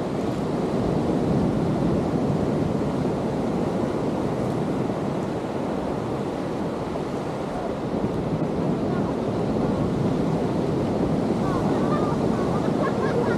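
Ocean surf breaking and washing on a beach: a steady, continuous rushing.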